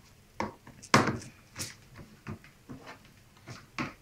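Plastic filter cartridges and tubing of an RO water purifier being handled and fitted: a run of short plastic knocks and clicks, the loudest about a second in.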